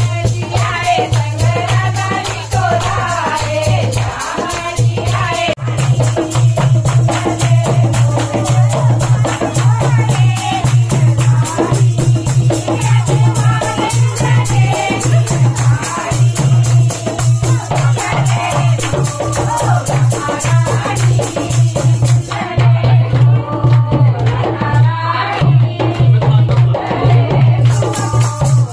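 Himachali folk dance music with singing over a steady, pulsing beat and rapid percussion.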